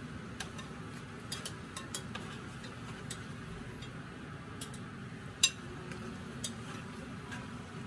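Light, irregular clicks and taps of kitchen utensils, about a dozen, with one sharper click about five and a half seconds in, over a steady low hum.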